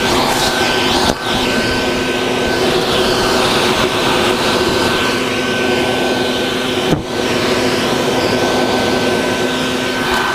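Vacuum running steadily with a constant motor whine while it sucks up bald-faced hornets; the sound dips briefly about a second in and again about seven seconds in.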